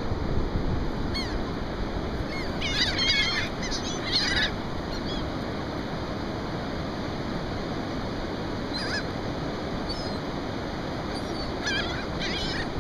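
A flock of gulls calling overhead: clusters of short, high cries a few seconds in, again past the middle and near the end, over a steady rush of wind and surf.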